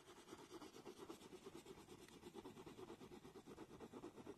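Faint, scratchy scribbling of a drawing tool shading on sketchbook paper, in quick, even back-and-forth strokes.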